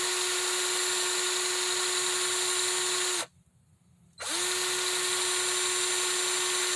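Small electric power tool's motor running steadily at high speed while it dresses down a pitted soldering iron tip. It switches off about three seconds in and restarts about a second later, its pitch rising as it spins back up.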